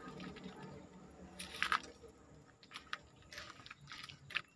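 Footsteps crunching irregularly on gravel and dry debris, the loudest crunch about a second and a half in.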